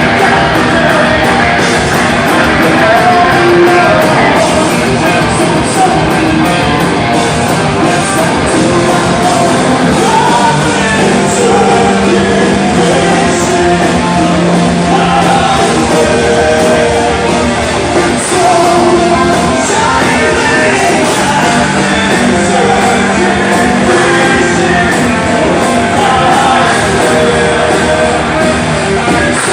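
Rock band playing live, loud and without a break, with a singer's vocal over guitars and drums.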